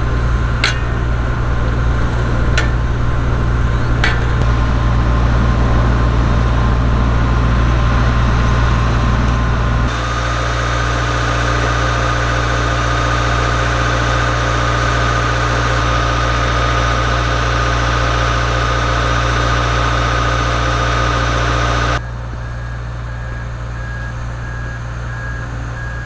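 Heavy construction machinery running with a steady, loud diesel engine hum, broken by three sharp knocks in the first few seconds. The sound changes abruptly twice, and in the last few seconds a reversing beeper pulses steadily over the engine.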